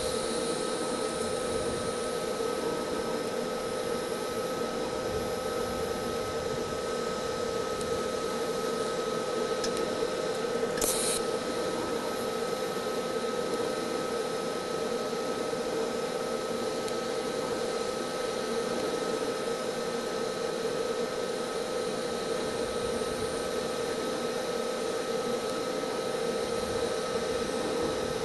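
TIG welding arc on car-body sheet steel, a steady hum and hiss as filler rod is fed in to build up and close a trim hole. A short, sharp crackle about eleven seconds in.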